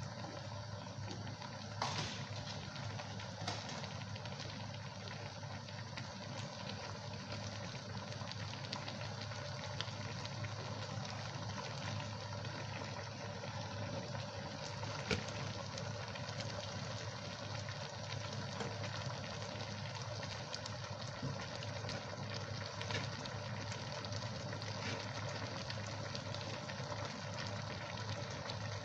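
A steady low mechanical hum with a constant hiss over it, broken by a few sharp clicks, one about 2 seconds in and another about 15 seconds in.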